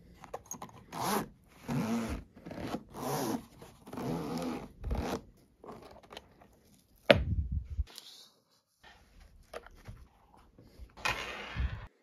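Zipper of a padded keyboard carry case being pulled open in several strokes, followed by a sharp knock about seven seconds in and a scraping rustle near the end as the case and keyboard are handled.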